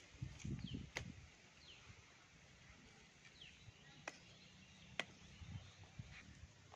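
Faint, quiet scene with a few short, sharp knocks, a brick striking the top of a bamboo stake to drive it into soft ground. Faint short bird chirps and rustling in the grass in the first second.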